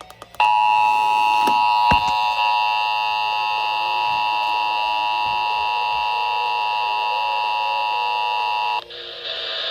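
Emergency Alert System two-tone attention signal: a steady dual-tone buzz of about eight seconds, announcing an Amber Alert. It cuts off sharply near the end and gives way to a hiss of broadcast noise.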